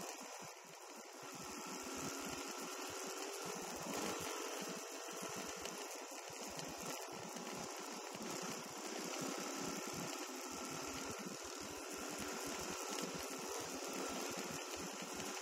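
Dirt bike engine running while riding, with a steady hiss over it; the engine note wavers slightly.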